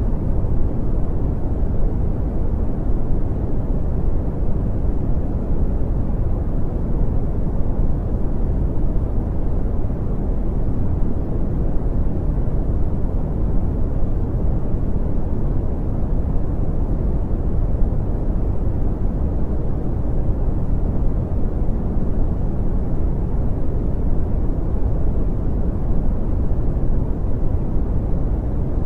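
Steady brown noise: an even, deep rushing hiss that carries most of its weight low and fades above the mid range, unchanging throughout.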